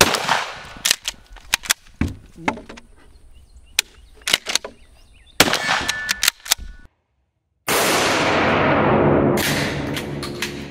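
Adler Arms HT108T 12-gauge pump-action shotgun fired once right at the start, followed by scattered metallic clicks and clacks of the pump action being worked. After a short dropout, a long, loud, even noise fills the last few seconds and slowly fades.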